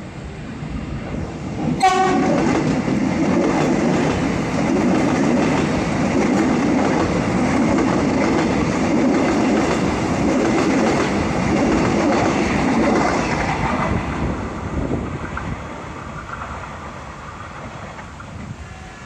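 A train passing close by: a short horn blast about two seconds in, then the wheels clattering over the rail joints and the rumble of the carriages, fading away over the last few seconds.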